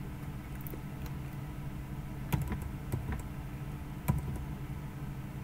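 Computer keyboard keystrokes: a few scattered key clicks over a steady low hum.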